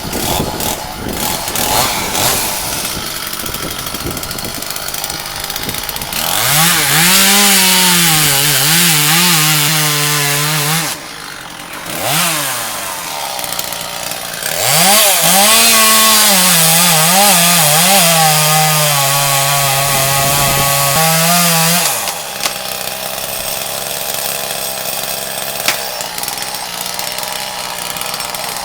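Chainsaw idling, then opened to full throttle and cutting for about five seconds, the engine note sagging and wavering under load; it drops back, blips once, then cuts again for about seven seconds before returning to idle. It is cutting through the trunk of the dead pine at its base.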